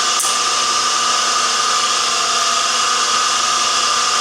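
Surface grinder running: a steady hiss with a constant high whine, and one short click just after the start.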